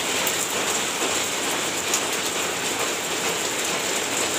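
Steady, even crackling hiss, like pattering, with a light tick about two seconds in.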